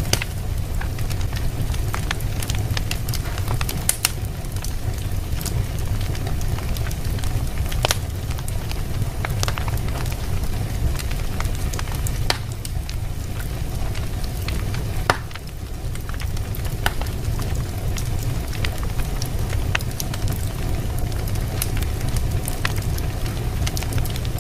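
Wood fire burning in a fireplace: irregular crackles and pops over a steady low rumble, with one sharper pop a little past the middle.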